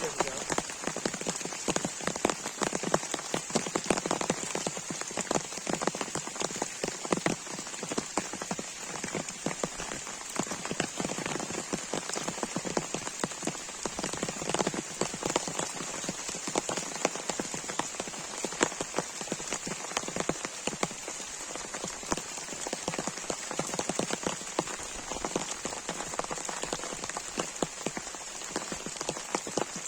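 Heavy rain falling steadily, a dense, irregular patter of drops striking a surface close by.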